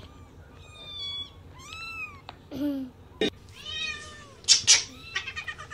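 Small kittens meowing: a string of high, arching mews one after another. About four and a half seconds in come two loud, sharp noises, then a quick run of smaller ones.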